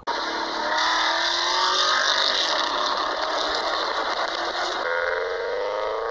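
Recorded car engines accelerating, their pitch climbing steadily: first a Porsche Cayenne, then, after an abrupt cut about five seconds in, a Subaru Forester, played as car-sound quiz clips.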